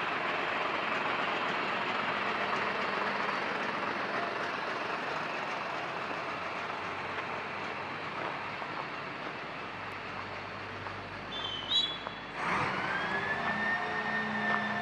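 City street traffic on a snowy, slushy road: a steady hiss of tyres through slush, with a few brief squeals about eleven seconds in. About twelve seconds in, a louder passing vehicle sets in with a steady electric whine.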